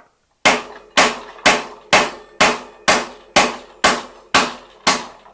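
A steel hammer striking a Park Tool BBT-90.3 bearing removal tool: about ten even metal-on-metal blows, two a second, each with a short ring. The blows are knocking a Raceface BB92 press-fit bottom bracket bearing out of the frame shell, the bearing moving out slowly.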